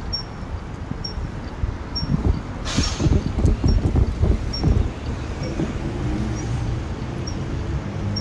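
Wind buffeting the microphone of a moving bicycle as the bike rolls along pavement. The gusts rumble hardest through the middle, with a brief hiss about three seconds in, and a faint light tick repeats a little more than once a second.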